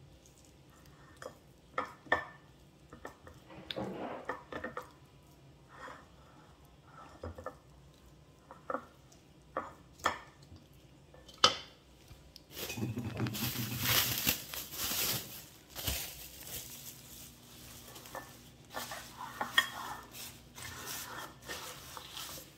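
A spatula scraping and clicking against a glass pie dish, with a few sharp taps. About halfway through comes a loud crackling stretch as plastic cling wrap is pulled off its roll, then softer crinkling as the wrap is pressed over the dish.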